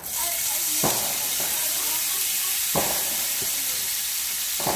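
Corn kernels hitting hot oil in a frying pan and sizzling loudly. The sizzle bursts in all at once as the corn goes in, then holds steady, with three sharp knocks in it about two seconds apart.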